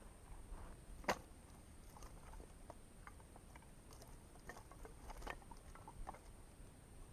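Faint scattered clicks and small knocks, like gear being handled, with one sharper click about a second in, over a steady faint high-pitched whine.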